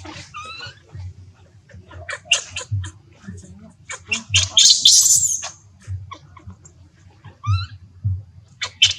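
Baby monkey crying with short high-pitched squeaks and wavering calls, begging its mother for milk, with a louder harsh screech about five seconds in.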